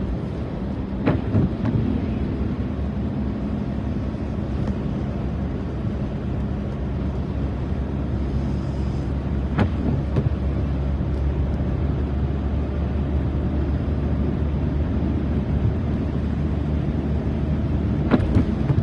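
Car driving on a rain-wet road, heard from inside the cabin: a steady drone of engine and tyre noise, with a few sharp ticks scattered through it.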